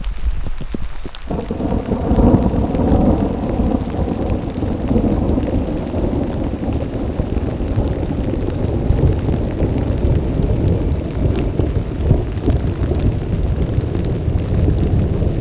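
A long roll of thunder that breaks in about a second in and keeps rumbling low and uneven, over falling rain.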